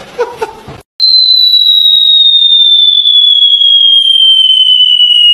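Whistle sound effect: a loud, single high tone that starts about a second in and glides slowly and steadily downward in pitch. It comes after a short burst of room noise that cuts off.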